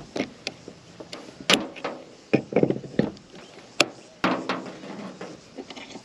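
RAILBLAZA Titan suction mount and action camera being handled and fitted together against a car's rear window glass: an irregular run of sharp clicks and knocks, some in quick clusters.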